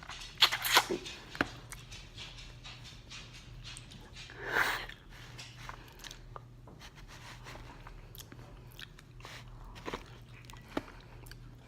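Crunching bites and chewing of crispy fried chicken, with several sharp crunches in the first second or so, then quieter scattered chewing clicks. A short muffled sound comes about halfway.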